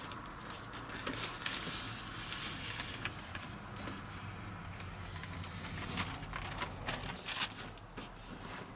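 Black plastic sheeting rustling and crinkling as it is smoothed and pressed with tape onto a truck's inner door panel, with scattered soft crackles and a couple of louder rustles past the middle, over a low steady hum.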